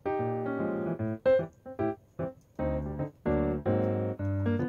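Background music: a keyboard tune of short, separate notes in a quick, bouncy rhythm, with some longer chords.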